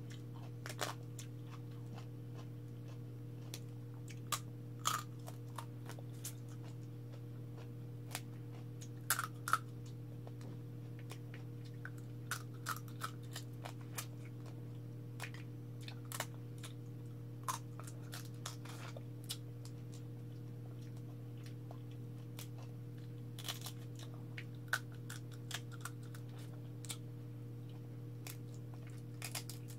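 Cooked crab shell being cracked and picked apart by hand while eating, a scattering of short clicks, crackles and crunches, over a steady low hum.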